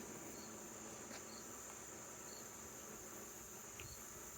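Faint steady insect drone with soft high chirps repeating about once a second, like crickets. A light click comes about a second in.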